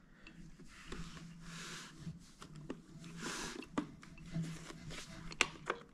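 Hands handling a plastic robot vacuum cleaner: soft rubbing and sliding over its casing, with several light clicks and taps.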